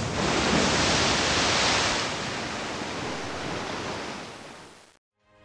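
Surf of a large ocean wave breaking: a rush of noise, strongest in the first two seconds, then fading away and stopping just before the end.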